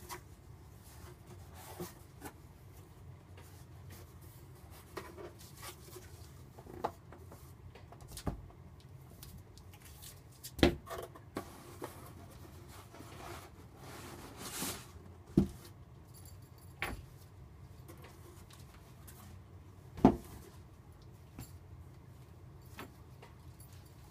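A cardboard box being unpacked by hand: flaps and packing cardboard rustling, items set down and tossed aside with scattered knocks and thumps, and a folded mesh screen being handled. The sharpest thumps come a little before halfway, just past halfway and several seconds before the end.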